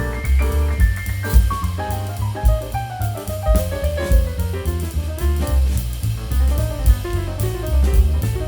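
Background music: an upbeat jazzy tune with drum kit keeping a steady beat, a bass line and a melody on piano-like notes.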